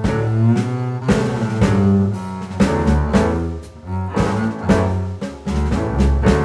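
Background instrumental music with a prominent low bass line and stringed instruments.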